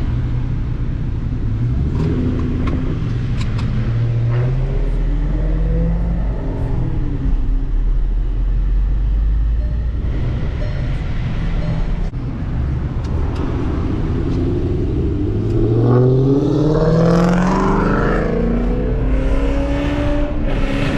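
Dodge Charger R/T's V8 with a crackle-and-pop burble tune, driving. It runs with a low rumble and a few sharp pops in the first few seconds. About two-thirds of the way in it revs up, its pitch climbing steeply before it levels off.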